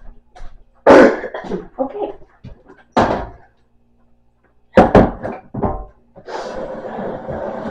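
Knocks and thuds of kitchen items being handled and set down at a cupboard and counter: sharp knocks about a second in, at three seconds and in a quick cluster around five seconds, then a steadier noise lasting over a second near the end.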